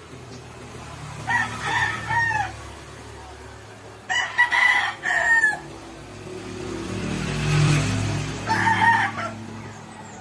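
Rooster crowing three times, the middle crow the loudest, each crow ending in a falling note. A low rumble swells and fades in the second half.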